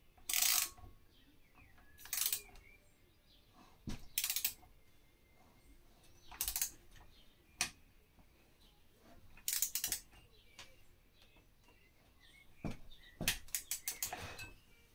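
Ratchet of a torque wrench clicking in short runs, about eight times, as the cylinder head bolts of a Briggs & Stratton Vanguard V-twin engine are tightened down to torque.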